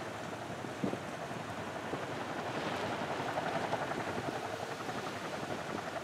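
CH-47 Chinook tandem-rotor helicopter taxiing, its rotors and turbine engines running as a steady, fast chop that swells slightly midway.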